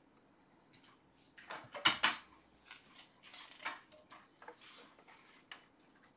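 Irregular rustling and clacking handling noises, a quick run of short bursts that is loudest about two seconds in and then keeps going more softly.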